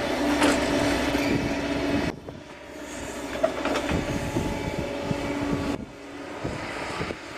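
Caterpillar M315 wheeled excavator working: diesel engine running and hydraulics driving the boom as it swings and lowers the bucket, with a few sharp knocks. The sound drops suddenly about two seconds in and again near the end.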